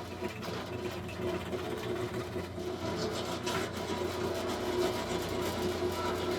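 An electric woodworking power tool's motor running steadily, with a constant hum.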